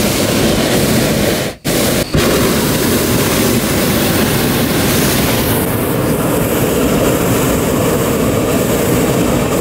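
Hot air balloon's propane burner firing overhead, a loud steady blast heating the envelope for lift-off. It cuts out twice briefly, about one and a half and two seconds in.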